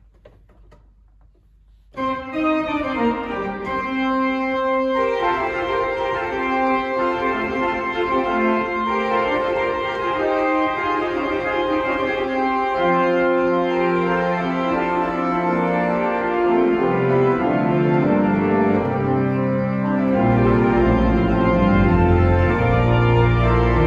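Church organ playing sustained chords, beginning about two seconds in. Deep bass pedal notes join toward the end.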